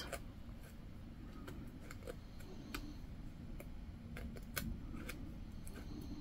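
Faint, irregular ticks and snips of small embroidery scissors cutting through and working loose the strands of waste canvas.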